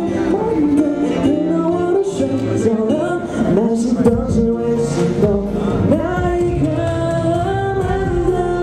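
Male pop singer singing live into a handheld microphone over instrumental backing, the sung melody gliding between held notes above a steady bass line and cymbals.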